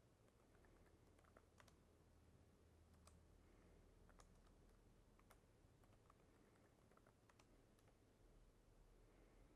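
Near silence: quiet room tone with faint, irregular clicks scattered through it.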